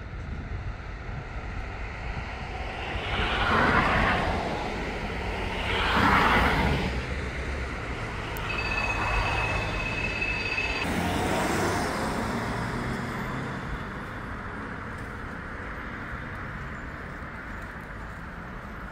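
City street traffic: a steady rumble with vehicles passing close by, the two loudest about four and six seconds in, and a thin high squeal for a couple of seconds around the middle.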